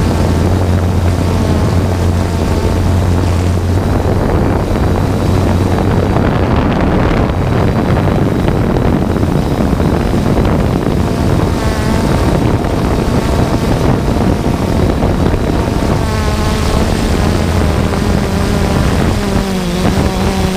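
3DR Solo quadcopter's motors and propellers buzzing loudly at close range, a steady hum whose pitch slides up and down a few times in the second half as the drone adjusts its flight. Wind noise rushes over the microphone.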